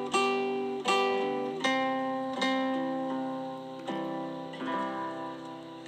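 Background music: chords on a plucked string instrument, struck about every three quarters of a second and left to ring, growing fainter toward the end.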